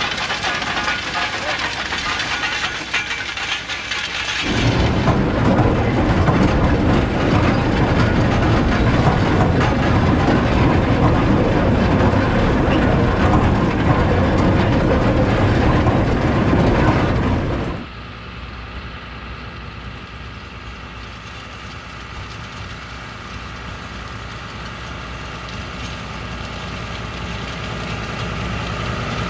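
John Deere 6170R tractor's six-cylinder diesel and a Grimme GL 410 potato planter working in the field, a steady mechanical clatter and engine noise. The noise is heaviest in the middle stretch, then drops sharply to the engine running more quietly and growing louder toward the end as the tractor comes closer.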